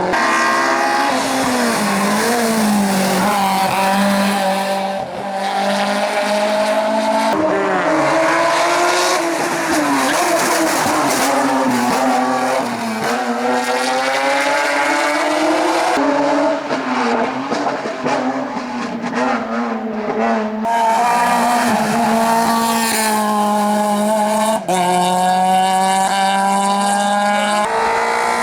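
Race car engines accelerating hard and changing gear, the pitch climbing and dropping again and again. The sound switches abruptly several times.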